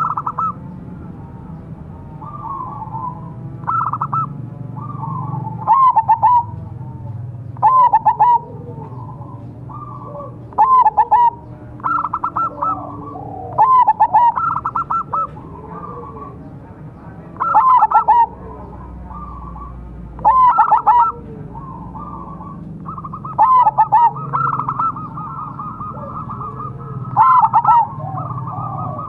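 Zebra dove (perkutut) cooing its rapid, staccato song over and over, with loud phrases every two to three seconds and softer cooing between them.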